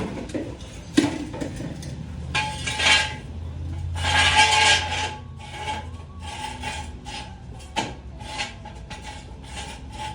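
Hand tools and metal parts clinking, knocking and scraping in irregular bursts, with a longer rasping scrape about four seconds in.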